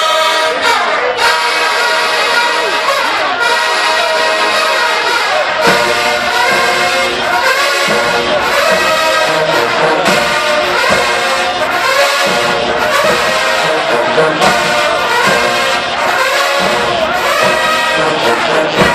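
HBCU show-style marching band brass section, trombones and trumpets, playing loudly, with many notes sliding up and down.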